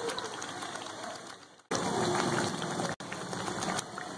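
Thick onion-tomato masala simmering in oil in a frying pan: a steady crackling sizzle and bubbling. The sound fades away and cuts back in abruptly about a second and a half in, with a brief dropout near three seconds.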